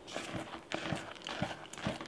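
Silicone spatula stirring dry flour, sugar and chocolate chip mix in a mixing bowl: soft scraping through the powder with uneven knocks of the spatula against the bowl, five or six in two seconds.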